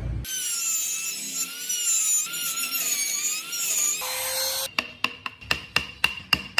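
A small power carving tool whining, its pitch wavering as it cuts. About four seconds in it gives way to quick, regular rasping strokes on wood, about five a second.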